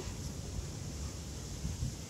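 Wind buffeting the microphone: an uneven low rumble with a faint steady hiss.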